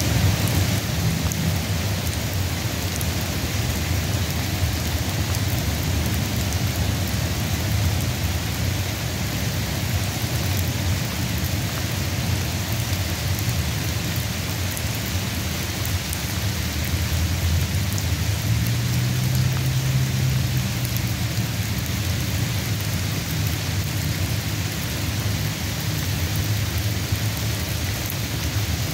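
Steady rain of a sun shower: an even hiss with scattered drop ticks, over a constant low rumble.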